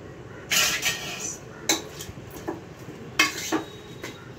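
Steel bowls, spoons and a cooking pot clinking and knocking together, about half a dozen separate clatters, as whole spices and sliced onion are added to the pot.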